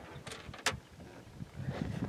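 Two short clicks about a third of a second apart, the second a sharp crack, over a low unsteady rumble.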